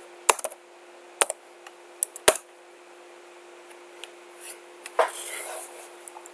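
Sharp clicks of a computer keyboard and mouse: one about a third of a second in, then more at about one and two seconds, followed by a short rustle around five seconds. A steady faint hum runs underneath.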